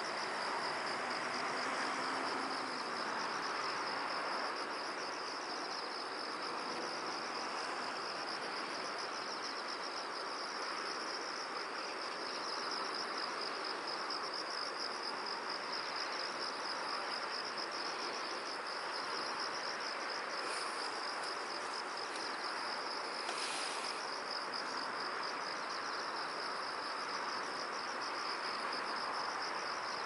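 Insects chirring in a steady high-pitched trill with a fast, even pulse, over a constant background hiss. A brief sharper sound cuts in about three-quarters of the way through.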